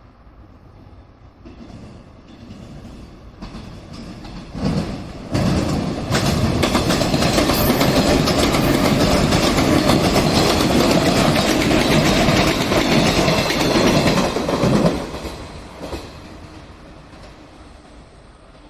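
A train passing on the rails, its wheels clattering over the rail joints. It grows louder, stays loud for about ten seconds and then fades away.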